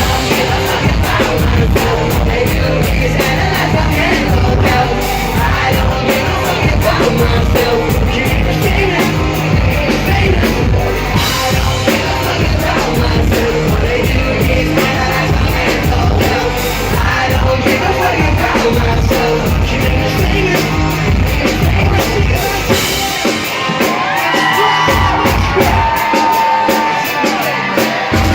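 Live punk-rock band playing loud, with a singer over drums, bass and electric guitars. About 24 seconds in the drums and bass drop out, leaving voice and sustained guitar tones.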